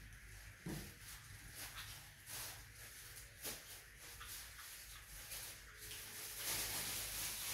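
Small kitten chewing food, faint irregular little clicks and smacks, with a hiss of background noise swelling near the end.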